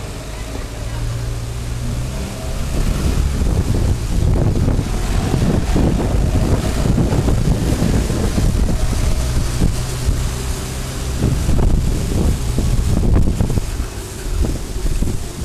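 Wind noise rumbling on the microphone of a bike-mounted action camera while riding, swelling louder about two and a half seconds in, over the low steady running of a lorry's engine alongside.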